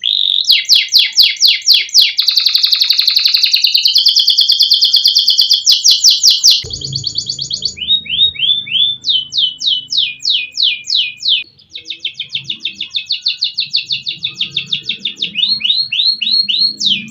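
Adult domestic canary singing a continuous song of fast rolling trills and rapid runs of repeated downward-sweeping notes, switching phrase every few seconds. A faint low rumble sits underneath from about a third of the way in.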